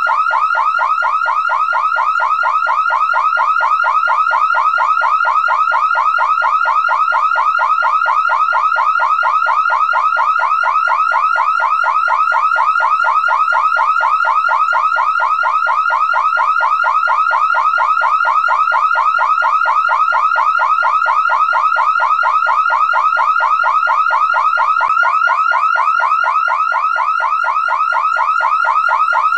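Car alarm siren going off continuously: a loud, fast warbling tone that repeats several times a second without a break.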